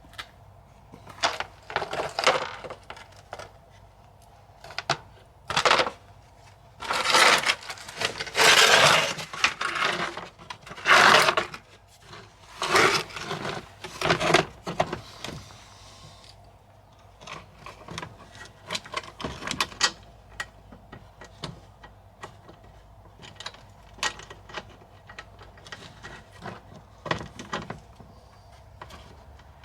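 Irregular clattering, clinking and scraping of parts and tools being handled. The loudest stretch is a run of rough scrapes in the middle, with lighter clicks and clinks after it.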